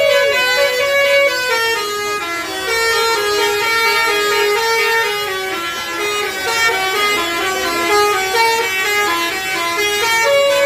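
Bus telolet horn of the Basuri type playing a tune: a continuous run of held notes that step up and down in pitch.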